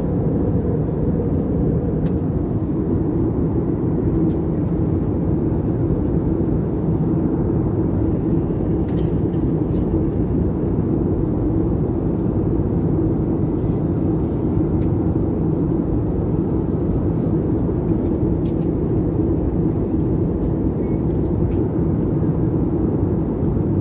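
Steady in-flight cabin noise of an Airbus A320 airliner: the even roar of its jet engines and the rushing airflow, with a low hum and a few faint clicks.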